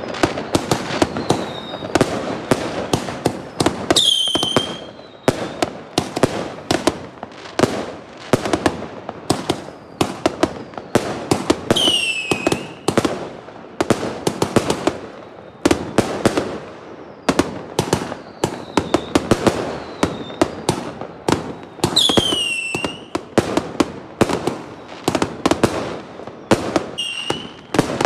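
Fireworks going off close by: a dense, unbroken run of sharp bangs and crackling pops. Four loud whistles fall in pitch among the bangs, spread through the stretch.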